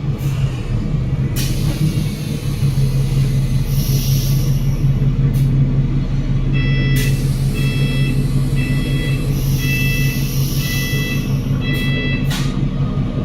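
Bus running with the steady low drone of its Cummins L9 diesel engine through the Voith automatic gearbox, with several short bursts of hiss. From about halfway to near the end, a repeating series of short, high electronic beeps sounds over it.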